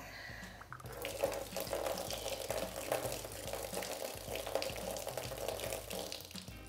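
Liquid pouring in a steady trickle from the open end of a disconnected turbo boost pipe and splashing into a drain pan, starting about a second in.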